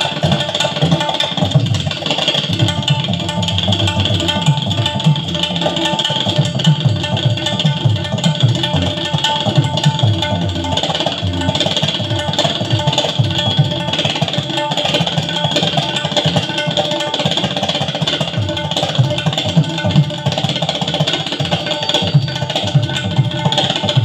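Tabla solo played at high speed: a dense, unbroken stream of fast strokes on the high right-hand drum and the deep left-hand drum.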